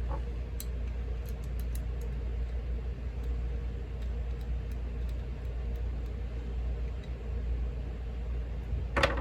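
American Lock 1100 padlock being handled after reassembly: a few faint metal clicks and one louder clack near the end, over a steady low hum.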